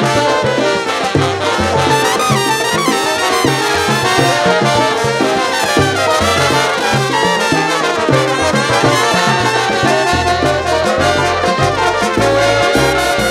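Live salsa band playing, its trumpets and trombones carrying a horn line over timbales, percussion and bass.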